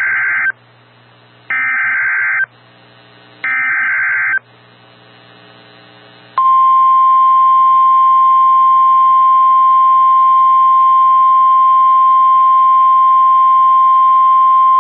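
Emergency Alert System SAME header: three bursts of warbling digital data tones, about a second each and a second apart, then about six seconds in the NOAA Weather Radio warning alarm tone, a single steady high tone at 1050 Hz. Together they mark the start of a new alert, here a tornado warning.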